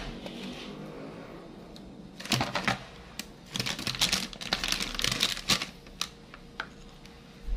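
Irregular clicking and crackling as a clear plastic bag of graham cracker crumbs is handled and the crumbs are spread on a plate by hand, dense for a few seconds from about two seconds in, then a few single clicks.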